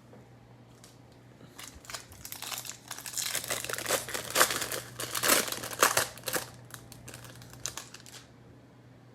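Foil trading-card pack wrapper being crinkled and torn open, a dense crackling that builds up, is loudest in the middle and stops about a second before the end, over a faint steady low hum.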